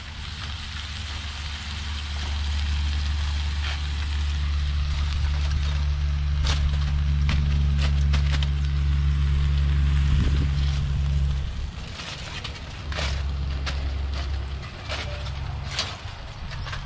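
Aluminium foil crinkling and metal tongs clicking as foil is laid over a chicken on a propane burner. Underneath is a steady low rumble that drops away about eleven seconds in and then comes and goes.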